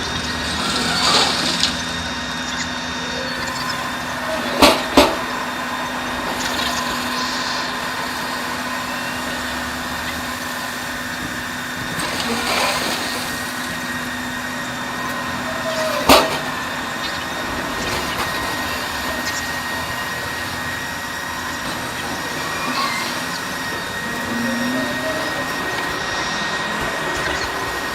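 Heavy machinery running steadily with a constant hum and a few steady whining tones, broken by sharp knocks: two close together about five seconds in and one more about sixteen seconds in.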